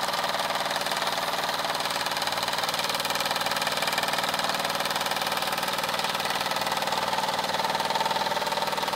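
Wilesco D24 model steam engine running steadily at full working pressure, unloaded except for a small belt-driven dynamo, with a fast even beat.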